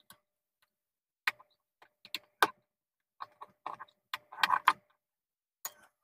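Light, irregular clicks and taps of a screwdriver and wire being worked at a terminal screw on a plastic switchboard, with a short run of taps about four and a half seconds in.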